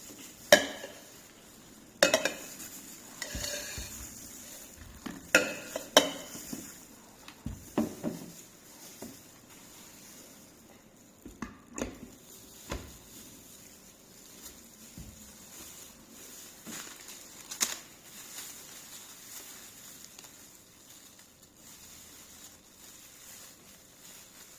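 Scattered knocks and clinks of hard plastic slow-juicer parts being handled and set down, some with a short ringing. They come thickly over the first eight seconds, then more sparsely.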